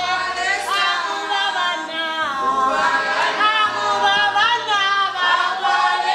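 A group of voices singing together a cappella, with no instruments, the notes held and wavering.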